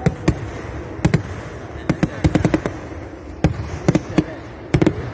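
Temple fireworks (vedikkettu) going off: a dozen or so sharp bangs at irregular spacing, several in quick clusters, over a low rumble.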